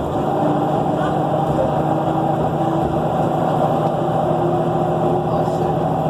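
Nova Bus LFS articulated city bus running, heard from inside the cabin. Its engine and drivetrain drone steadily under whining tones, one of them slowly rising in pitch.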